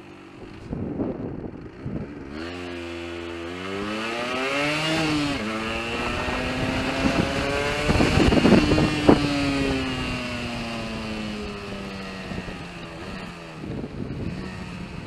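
Yamaha RD125LC YPVS two-stroke single-cylinder engine revving: the pitch climbs, drops abruptly about five seconds in, then slowly falls away. Irregular sharp crackles come about eight to nine seconds in, the splutter and misfire the engine is suffering from.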